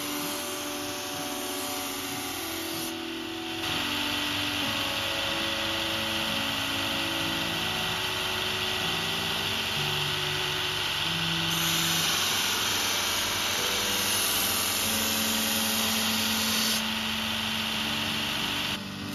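Bench grinder scrubbing a spring-steel knife blade against its spinning wire wheel: a steady harsh hiss, louder from about four seconds in until about seventeen. Background music plays throughout.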